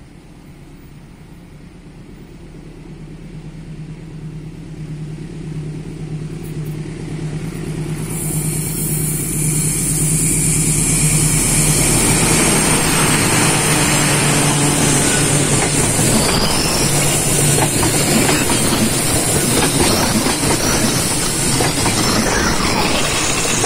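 Diesel-electric locomotive hauling a passenger train toward the listener. Its engine hum grows steadily louder over about the first ten seconds, then the passenger coaches pass close by with the loud rolling clatter of their wheels on the rails.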